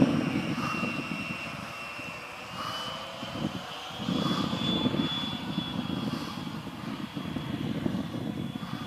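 Electric ducted fan of a Skymaster F-18 RC jet (120 mm, 880 kV) in flight overhead: a steady high whine whose pitch rises a little about two and a half seconds in, over a gusty low rumble.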